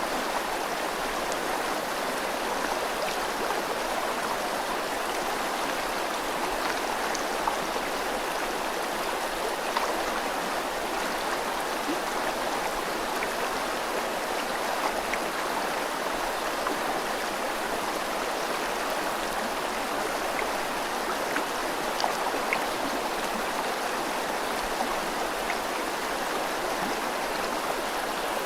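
A river flowing with rain falling, a steady rushing of water with faint drips and small splashes scattered through it.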